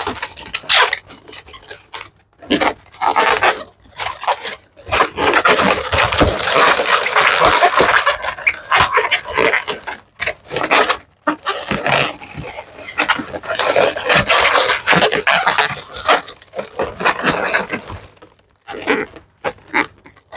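Inflated latex twisting balloons squeaking and rubbing against each other as a balloon ear is pushed and twisted into place on a balloon headpiece.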